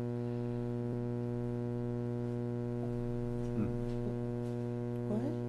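Steady electrical mains hum with a stack of even overtones, unchanging in level and pitch, from the meeting's sound system or recording chain.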